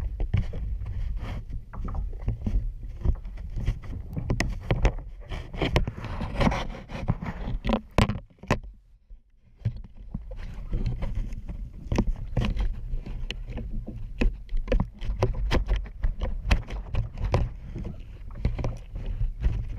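Sea water sloshing and splashing against and inside a clear plastic kayak, with many irregular small splashes and clicks over a steady low wind rumble on the action camera's microphone. The sound drops away almost completely for about a second and a half around eight seconds in.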